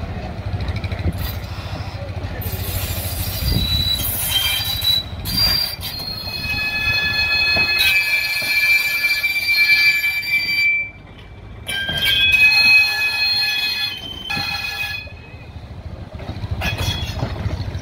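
Steel wheels of a vintage electric interurban trolley car squealing as it rounds a curve, with several high-pitched squeals over the low rumble of the car rolling by. The squealing starts a few seconds in, drops out briefly about eleven seconds in, then returns and fades near the end.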